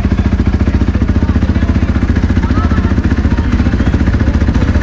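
Motocross bike engine idling close by, a steady, rapid, even pulse.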